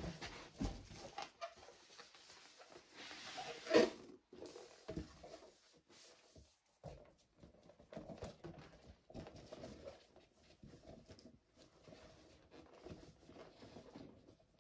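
Inflated latex balloons being handled and pressed together, rubbing and squeaking on and off as they are fitted into a balloon garland, with one louder squeak about four seconds in.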